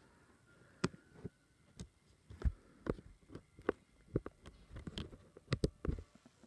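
Handling noise: about a dozen irregular clicks and knocks as things are moved about by hand, starting about a second in.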